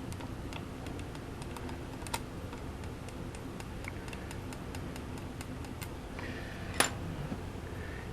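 A string of light, irregular clicks and taps of small hard parts being handled, with a sharper click about two seconds in and a louder one near seven seconds, over a steady low hum.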